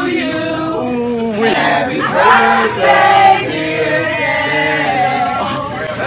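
Vocal music: a song with a group of voices singing long held notes.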